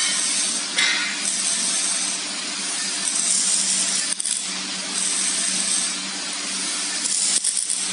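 A few light metal clinks as galvanized steel frame tubes and brackets are handled and fitted together by hand. Under them runs a steady hiss with a low hum.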